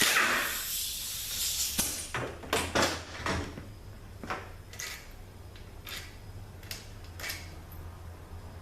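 A short hiss fading away, then a series of irregular light metallic clicks and knocks: tools and bolts being handled while the transmission pump bolts are taken out.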